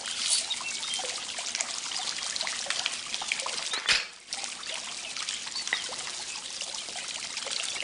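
Small fountain jet trickling steadily into its basin, with a single sharp knock about four seconds in.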